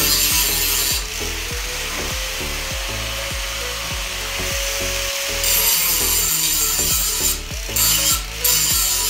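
Angle grinder sharpening the badly nicked edge of a steel lawnmower blade held in a vise: a steady grinding hiss over the motor's whine. The grinding breaks off briefly twice near the end.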